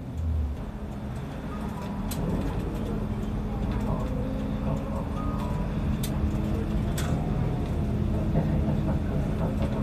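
Inside a route bus as it drives: the engine and road rumble run steadily under a constant low hum. Three sharp clicks or rattles come about 2, 6 and 7 seconds in.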